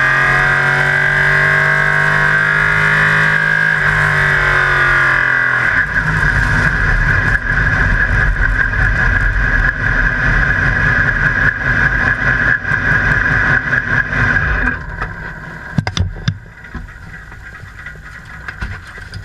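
LMP3 prototype's Nissan V8 heard from inside the cockpit, running steadily at low speed with a high whine over it, then dropping to a rough idle about six seconds in. The engine is switched off about fifteen seconds in, leaving a few clicks and knocks.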